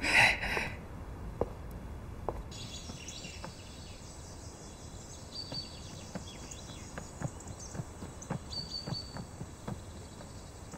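A man's voice briefly at the very start, then quiet outdoor ambience: a steady faint hiss with a few short bird chirps and scattered light clicks.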